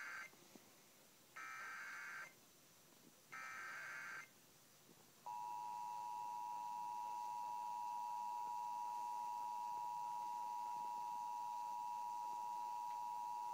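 Emergency Alert System header broadcast over AM radio: three bursts of SAME data tones, each a raspy warble about a second long, the first ending just after the start, then about five seconds in the steady two-tone EAS attention signal starts and holds.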